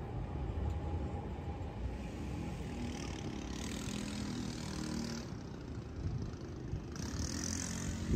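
City street traffic noise: a steady low rumble of road vehicles, with a tram on the line at the start, a faint steady whine early on, and two spells of hiss, about three and a half seconds in and near the end.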